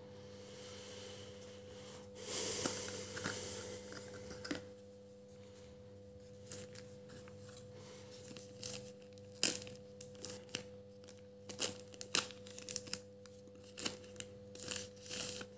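Thin plastic packaging pouch being handled and pulled open, crinkling and rustling. A longer rustle comes about two to four seconds in, then quick irregular crackles through the second half, over a faint steady hum.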